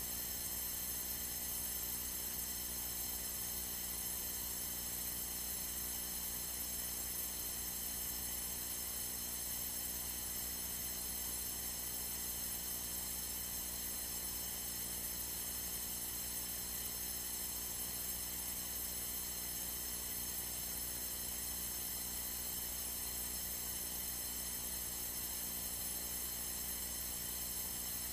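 Steady electrical hum and hiss on a light aircraft's radio/intercom audio feed, a whine of many even tones that does not change, with no transmission on the frequency.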